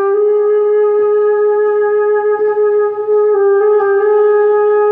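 A single flute holding long notes in a slow melody, its pitch stepping slightly a few times around the middle; music from an anime soundtrack.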